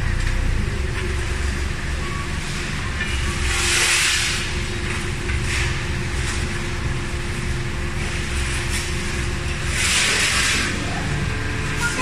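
Forklift engine running steadily with a low rumble. Two loud bursts of hiss, about four seconds in and about ten seconds in.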